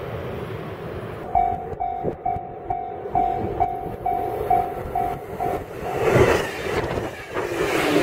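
Level-crossing warning bell dinging about twice a second, starting a second or so in. Then the rising noise of a JR Kyushu 813-series electric train approaching and passing close by, its wheels clattering over the rails, loudest at the end.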